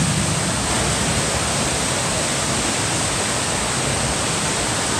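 Artificial waterfall in a museum's staged flash-flood display: water pouring down a sculpted rock wall in a steady rush.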